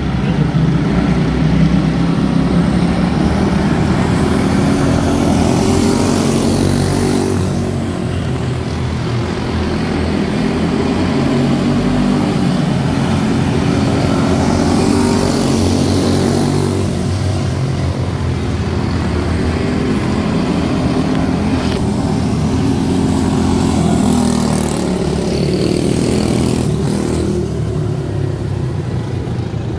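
A field of quarter midget race cars with single-cylinder Briggs & Stratton Animal engines running laps on a dirt oval, several engines at once, wavering with throttle. The sound swells three times as the pack passes close by.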